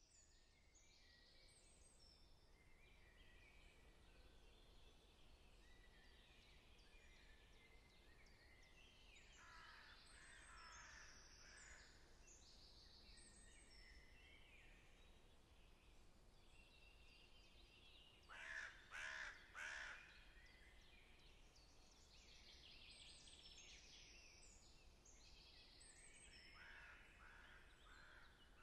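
Birds chirping and calling, with three louder calls in quick succession about two-thirds of the way through.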